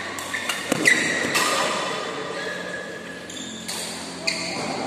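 Badminton doubles rally: racket strings striking the shuttlecock in several sharp hits, with shoe squeaks on the court floor.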